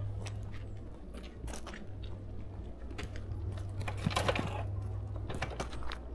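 Crunching and clicking as a motorbike is handled and rolled on a gravel road shoulder, with a denser burst of crackling about four seconds in, over a steady low rumble.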